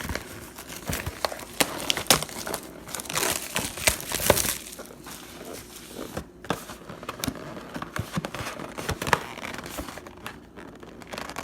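Plastic wrapping crinkling and tearing in the hands, with scattered rustles and clicks: trading-card boxes or packs being unwrapped.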